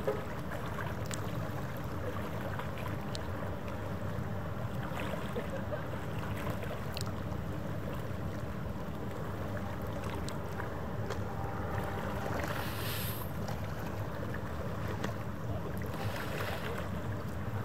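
Steady low rumble of a departing cruise ship's engines heard at a distance across the harbour, with a faint steady hum.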